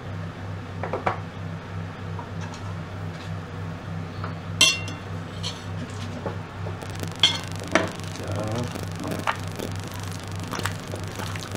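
A metal spoon clinking and scraping against a glass mixing bowl several times, the loudest clink about halfway through, then raw chicken wings squelching as they are worked by hand in the bowl. A steady low hum runs underneath.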